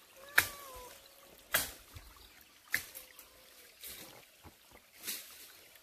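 A cat meows once near the start, a short call that drops in pitch at the end. Footsteps crunch on dry leaves and twigs about every second.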